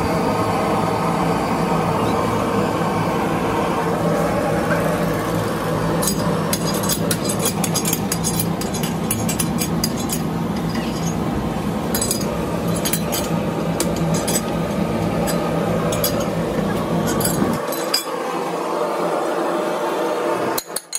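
Rapid metallic clinking and ticking from the steel tyre vulcanizing clamp as its handwheel is turned and tightened onto a truck tyre, over a steady mechanical hum. The hum stops abruptly near the end.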